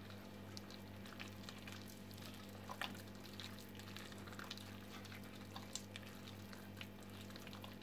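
Faint soft squishing of soft butter, powdered sugar and egg white being squeezed and kneaded by hand in a glass bowl, with scattered small clicks, over a steady low hum.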